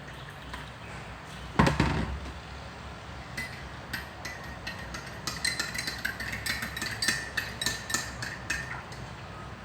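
A single knock about a second and a half in. Then a spoon stirring in a cup for several seconds, clinking rapidly against the sides with a short ringing tone, as the honey is stirred into the hot ginger water.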